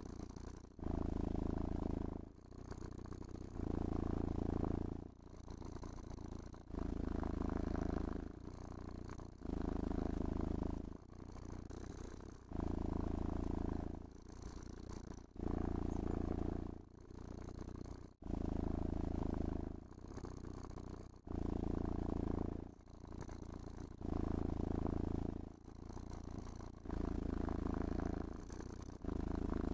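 Domestic cat purring steadily while being brushed. The purr alternates between a louder phase and a softer phase, about one full cycle every two seconds, as the cat breathes in and out.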